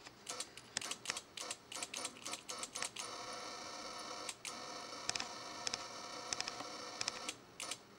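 High-voltage arc from a homemade vacuum-tube Tesla coil discharging into soil inside a glass jar. It crackles with irregular sharp snaps for about three seconds, then settles into a steady buzzing arc that cuts off suddenly about seven seconds in, followed by a couple of last snaps.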